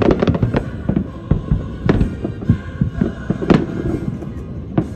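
Fireworks going off in a rapid, irregular string of bangs and crackles, with sharper reports about two and three and a half seconds in.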